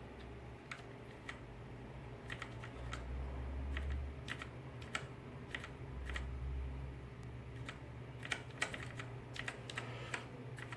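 Keys of a Redragon Mitra mechanical keyboard with Outemu Brown tactile switches being pressed, sharp short clicks at an uneven pace, single or a few in quick succession. A steady low hum runs underneath.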